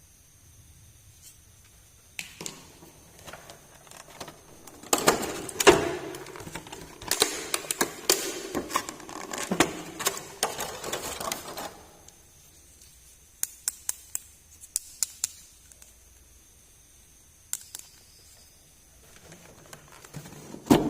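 Small plastic miniature toys being handled: a dense run of clicks, taps and rustling, then a few separate sharp clicks.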